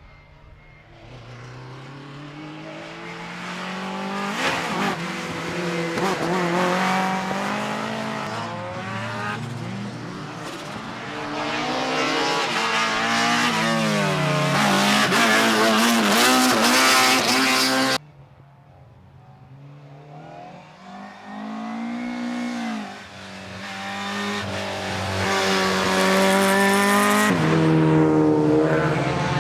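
Drift cars on a race circuit: an engine revs up and down repeatedly as a car passes through a corner, with tyre squeal, and the sound cuts off suddenly about two-thirds of the way through. A second car's engine then builds, revving and easing off, and is loud again near the end.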